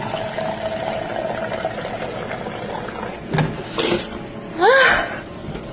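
Inspure countertop water dispenser pouring a stream of water into a plastic cup, a steady splashing fill. Two short bumps come at about three and a half seconds, and just before the end a short rising cry, the loudest sound.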